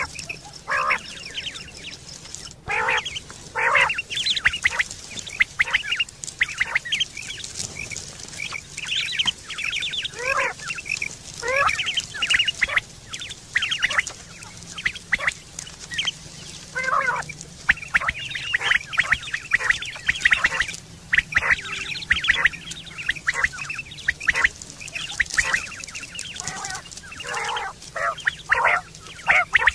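Quail calling over and over: many short calls in quick, irregular succession that overlap, as from several birds at once.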